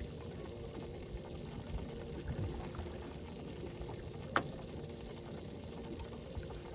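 Quiet ambience aboard a fishing boat on the water: a faint steady hum with low water noise, and a single sharp tap about four and a half seconds in.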